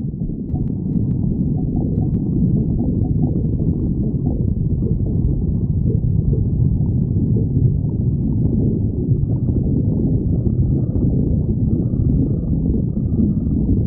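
A person's stomach growling: a continuous low rumble that goes on without a break.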